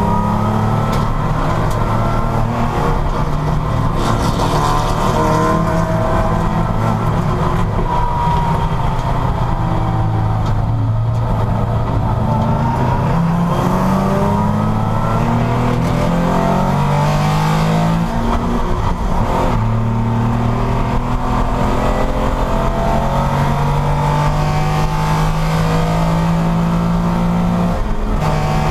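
Porsche race car engine under hard acceleration and braking. Its pitch climbs through the revs, drops at each gear change and climbs again, with a marked drop about two-thirds of the way through as it slows.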